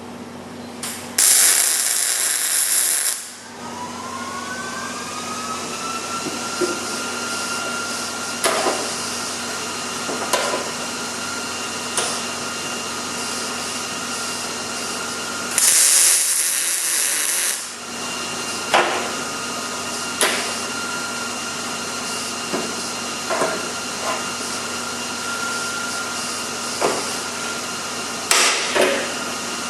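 Miller 211 MIG welder laying short welds: three bursts of loud, hissing arc crackle, two of about two seconds each (one near the start, one about halfway) and a shorter one near the end. Between the welds there is a steady hum and whine, with scattered clicks and taps.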